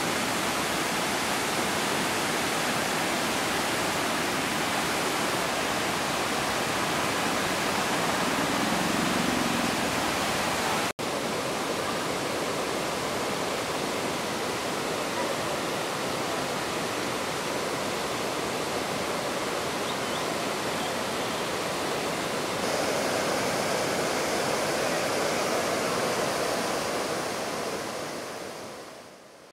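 Steady rush of white water from a monsoon-swollen waterfall and rocky cascade. It breaks off for an instant about eleven seconds in and fades out near the end.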